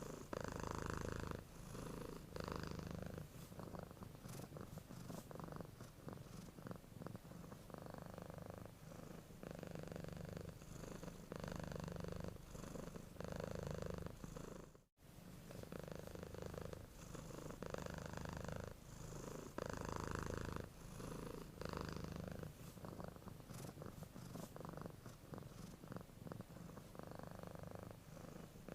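A domestic cat purring while asleep: a low, continuous rumble that swells and eases in cycles of about a second or two, following its breaths in and out. There is a split-second gap about halfway through.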